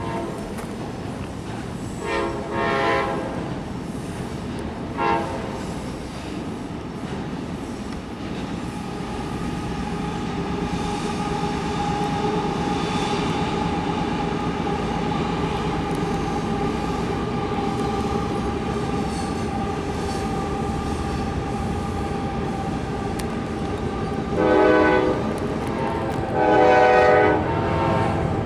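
Freight train cars rolling past, a steady rumble and clatter of wheels on rail, with a long steady squeal through the middle. A train horn sounds: a blast about two seconds in, a short one at five seconds, and two long blasts near the end.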